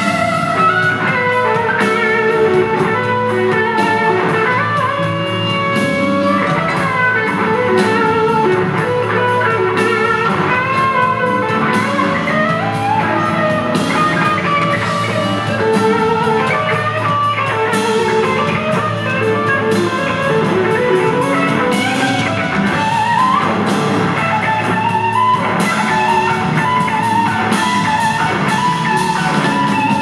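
Live rock band playing an instrumental passage: a Telecaster-style electric guitar plays a lead line over drums and bass.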